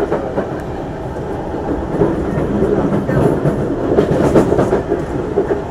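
Singapore MRT train running, heard from inside the carriage: a steady rumble of wheels on the track that grows louder about two seconds in, with a few clacks near the loudest part.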